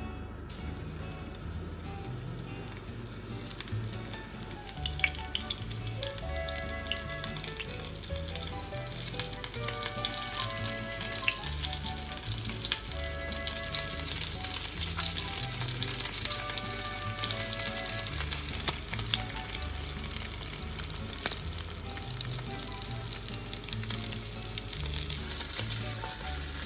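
Food sizzling and crackling as it fries in hot oil in a pan. The sizzle starts abruptly about half a second in and carries on steadily. Light background music plays underneath.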